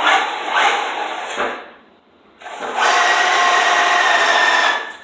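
RC car running: its motor whines in short bursts over the first two seconds, drops away briefly, then runs steadily with a high whine for about two seconds before cutting off.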